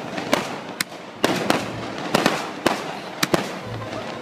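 Fireworks going off overhead: a string of sharp cracks and bangs at irregular intervals, some coming in quick pairs.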